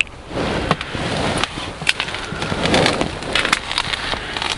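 Close rustling and scraping of hands and clothing handling a small caught fish and its jig, with a few short sharp clicks.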